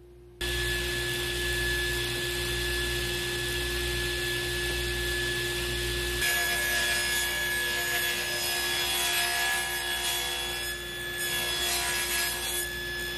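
Table saw running steadily and ripping plywood sheets to width: the saw's motor hum sits under the rasping noise of the blade cutting through the wood. The sound changes abruptly about six seconds in.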